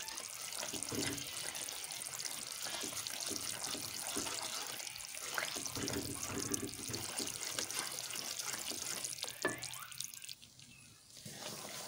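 Wooden spatula stirring gram flour roasting in ghee in an aluminium pot, a continuous wet stirring and scraping with many small clicks. The sound drops away briefly about ten seconds in, then resumes.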